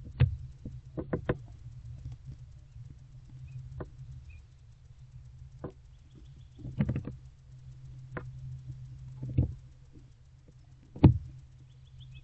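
Scattered knocks and thumps as barn owlets move and feed on a rat on the wooden floor of a nest box, a few in quick clusters and the loudest near the end. A steady low hum runs underneath.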